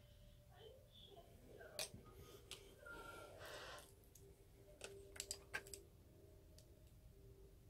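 Quiet clicks and taps of makeup brushes and containers being handled: one click about two seconds in, a soft rustle around three seconds, and a quick cluster of sharper clicks about five seconds in.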